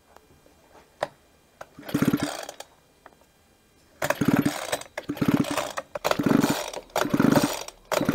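Recoil starter of a 22cc two-stroke hedge trimmer engine being pulled repeatedly, the engine spinning over with its spark plug out and grounded against the engine for a spark test. One pull about two seconds in, then short pulls about once a second from about halfway on, each a quick run of rapid strokes.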